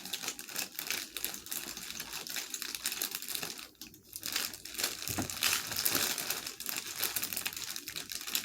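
Hands rummaging through a bag of loose batteries and wires: steady rustling and crinkling with many small clicks, with a short lull about four seconds in.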